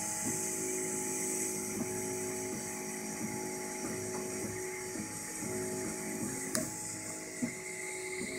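Ultimaker 2 3D printer printing: its stepper motors whine in steady tones that jump to a new pitch every half second or so as the print head changes direction, over the steady hiss of the print-head fans. A single sharp click comes about two-thirds of the way through.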